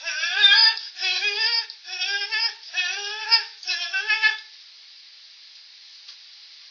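High singing voice, with no words, in six short notes that each rise in pitch over about four and a half seconds, then only a faint steady hiss.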